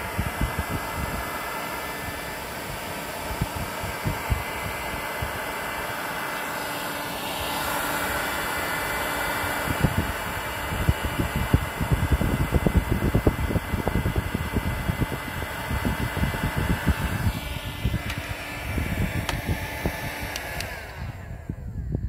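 Kemper 2000 W electric weed burner, a hot-air blower, running steadily with a fan-like hiss and a faint hum. From about halfway the low end turns gusty and uneven, and the hiss cuts off near the end.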